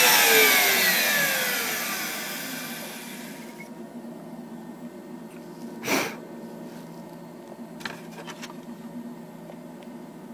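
A CNC router's spindle spinning down after carving, its whine falling in pitch and fading away over the first three or four seconds. A brief rustle follows about six seconds in, and a few light clicks near eight seconds.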